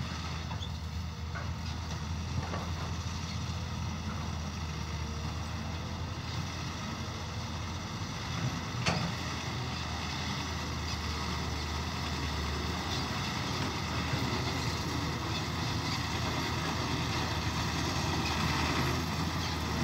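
Hyundai dump truck's diesel engine running steadily as the truck drives slowly across rough ground, getting gradually louder as it comes closer. A single sharp knock is heard about nine seconds in.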